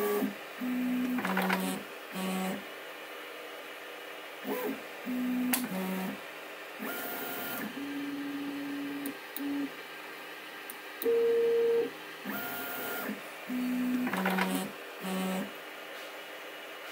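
Stepper motors of a CoreXY 3D printer whining in short steady tones at several different pitches, each move ending in a pause, as the toolhead travels between points during an automatic 3-point bed level with a Klicky probe. A few faint clicks come in between, and the same sequence of tones starts over near the end as the leveling pass repeats.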